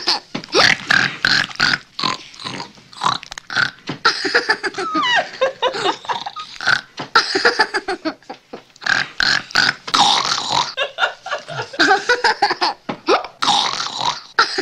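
A small boy imitating a pig eating: a long run of short, irregular oinks and grunts from his nose and throat.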